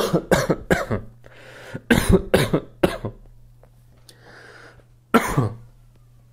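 A man coughing in fits: three quick coughs, then three more about two seconds in, a breath, and one last cough near the end.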